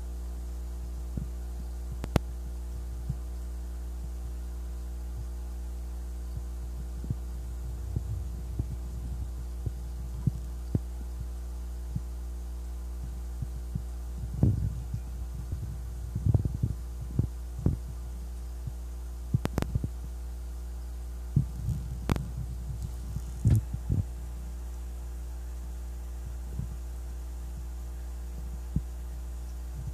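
A steady low hum, with scattered soft knocks and thumps from about halfway through.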